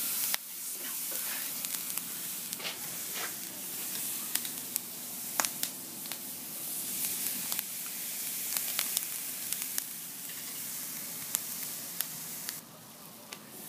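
Marinated flanken-cut beef ribs sizzling on a charcoal kettle grill over hot mesquite: a steady hiss with sharp pops and crackles scattered through it. The sizzle drops away near the end.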